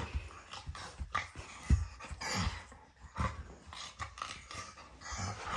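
A Labrador retriever making play noises and scuffling as it paws at a person on a bed: irregular bursts of dog sounds and breathing with soft thumps and rustling of bedding.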